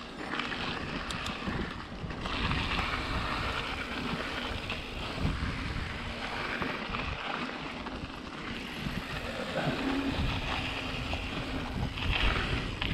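Mountain bike rolling downhill on a dry dirt trail: tyres on dirt and loose stones with the bike rattling, and steady wind rushing over the microphone.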